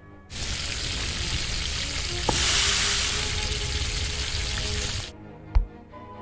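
A steady hiss starting just after the beginning, swelling about halfway through and cutting off suddenly about a second before the end, over quiet background music.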